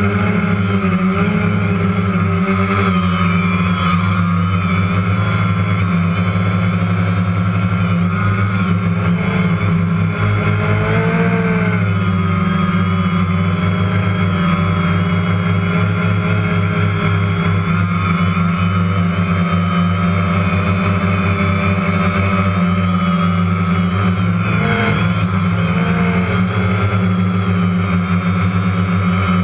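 Quadcopter drone motors and propellers humming steadily, their whine wavering up and down in pitch as the throttle changes.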